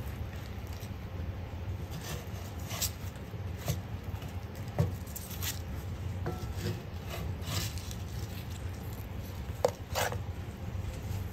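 Wooden spatula scraping and knocking against a cast iron skillet as hot dogs are turned among Brussels sprouts: scattered short scrapes and clicks, the sharpest about halfway through and again near the end, over a steady low hum.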